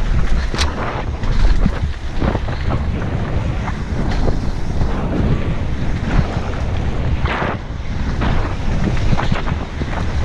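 Wind buffeting a helmet-mounted GoPro's microphone on a fast mountain-bike descent, over tyres rolling on a dirt trail, with scattered sharp clicks and rattles from the bike over bumps.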